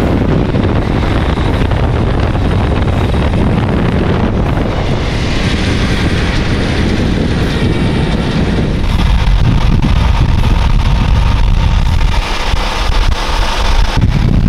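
Buell Hammerhead 1190 V-twin motorcycle being ridden, its engine running under heavy wind noise on the microphone. The rush of noise grows brighter about a third of the way in.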